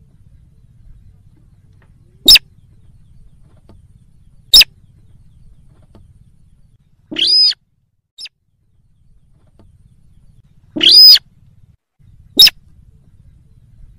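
Slaty-breasted rail calling: short, sharp, loud calls a couple of seconds apart, with two longer calls about seven and eleven seconds in.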